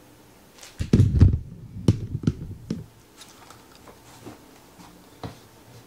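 Handling noise from the camera being grabbed and moved by hand: a burst of dull thumps about a second in, then a few sharp clicks and knocks.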